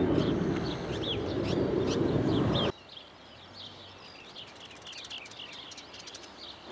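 Birds chirping over a loud, low rushing noise that cuts off abruptly a little under three seconds in. The chirping continues faintly afterwards.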